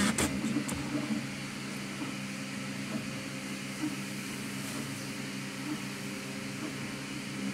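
A steady low mechanical hum with a light hiss, from a motor or appliance such as a fan, with a few short clicks in the first second.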